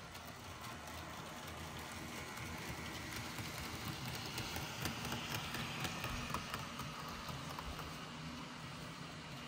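Roco model ÖBB 1670 electric locomotive running along model railway track, pulling a train of beer wagons. The wheels make a light running rattle with many small clicks. It grows louder towards the middle as the train passes close, then eases off.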